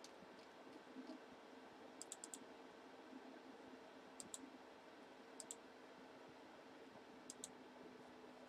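Near silence broken by a few faint computer mouse clicks, mostly in quick pairs.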